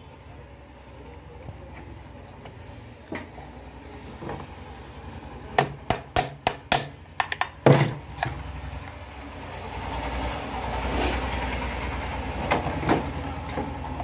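A quick run of about eight sharp knocks on something hard, followed by a low rumbling noise that swells and stays, with a couple more knocks near the end.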